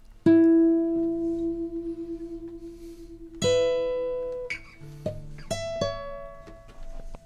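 A few slow, single instrument notes, each struck or plucked and left to ring out: one long note about a quarter second in, another about three and a half seconds in, then a few quicker notes around five to six seconds.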